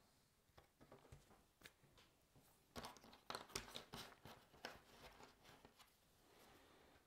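Faint clicks and small rustles of cardboard jigsaw puzzle pieces being handled, picked over and fitted by hand on a tabletop. The clicks come thickest in the middle of the stretch.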